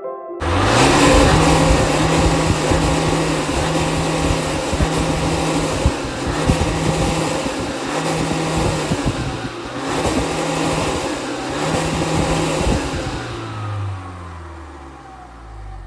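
Jaguar XE 2.0 four-cylinder engine running hard under load, cutting in suddenly just after the start, then easing off with a falling pitch over the last few seconds.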